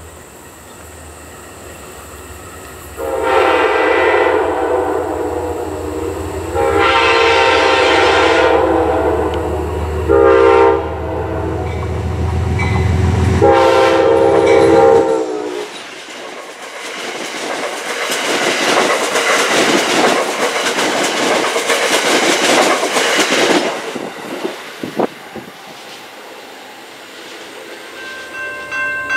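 Amtrak GE P32AC-DM diesel locomotive approaching and sounding its horn in four blasts, long, long, short, long, the grade-crossing signal, over a rising engine drone. It then passes, and its passenger cars clatter by on the rails before fading. Near the end a crossing bell starts ringing.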